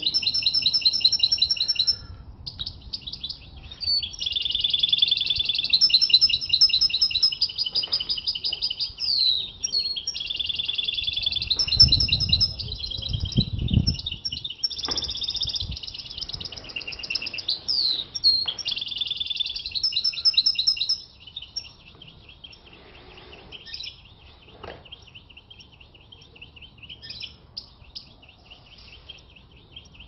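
European goldfinch singing a long, rapid twittering song of quick trills and short notes, loud for the first two-thirds, then fainter but still going near the end.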